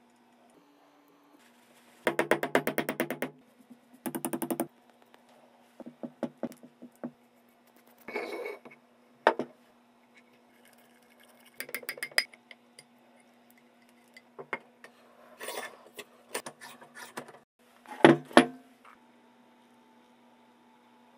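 Steel parts of a Gressel cast-iron machine vise being handled and fitted together: bursts of rapid metallic clicking, then scattered clinks and knocks, loudest near the end, over a faint steady hum.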